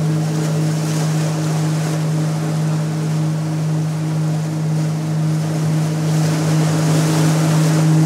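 A gong resonating in a low, steady hum with a few overtones above it, over sea surf washing onto rocks.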